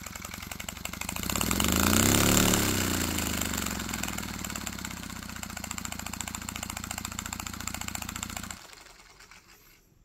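Paper model single-cylinder air engine running and puffing rapidly through its homemade paper exhaust. It speeds up to its loudest about two seconds in, settles into a steady run, then stops and dies away near the end.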